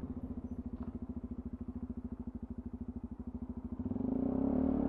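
Sinnis Terrain 125 motorcycle's single-cylinder engine running at low revs with a steady, even pulsing. About four seconds in, the noise of an oncoming car swells as it passes close by.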